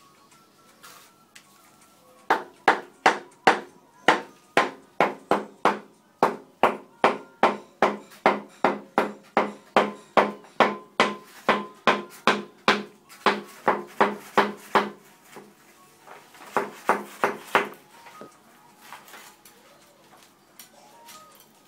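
A hard tool tapping on ceramic wall tile, with sharp, evenly spaced knocks that each ring briefly. There are about three knocks a second for some thirteen seconds, then a pause and a short run of about five more.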